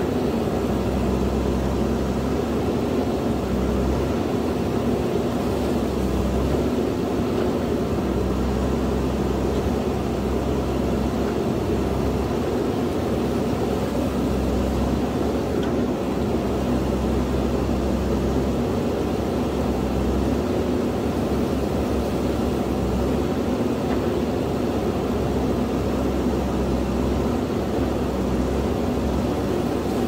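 JCB backhoe loader's diesel engine running steadily under working load, its low rumble swelling and easing every second or two as the hydraulics dig.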